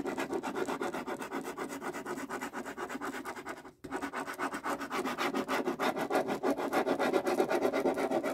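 A pen scribbling fast back and forth on a sheet of paper, hatching over a row of a chart in quick, even strokes, with a brief pause just under four seconds in.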